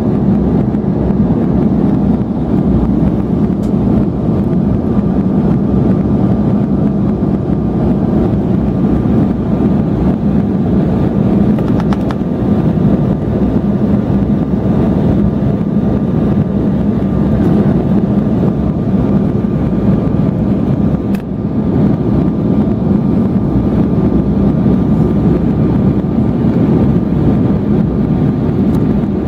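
Steady cabin noise of a jet airliner descending on approach, heard from a window seat: a low engine drone and airflow rush, with a faint steady whine over it.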